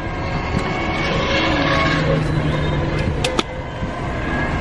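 Street noise with traffic and a steady hum through the middle. About three seconds in come two sharp clicks as a hard-shell suitcase's telescopic handle is pushed down.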